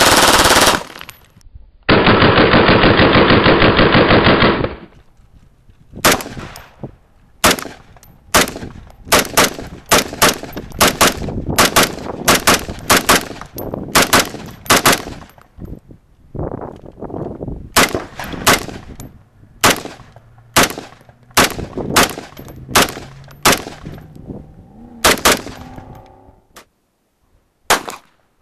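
Gunfire from pistols and a rifle: a single loud shot, then a continuous rapid burst lasting about two and a half seconds, then long strings of separate sharp shots at about two a second, with one more shot near the end.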